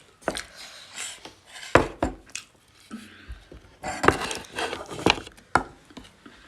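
Close-up eating sounds from a pork-and-rice meal: chewing and mouth noises, with several sharp clicks and knocks of dishes against a plate scattered through.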